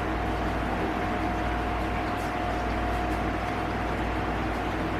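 Steady background hum and hiss with a faint constant tone running under it, with no distinct events.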